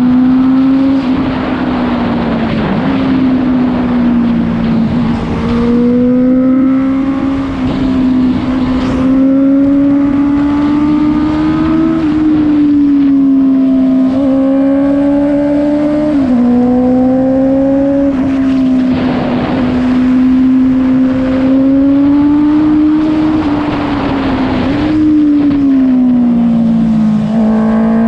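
Honda CBR650F inline-four engine running loud through an Akrapovic full-system exhaust with no dB killer, pulling at steady mid revs. Its pitch climbs gradually and then drops suddenly a few times, as at upshifts.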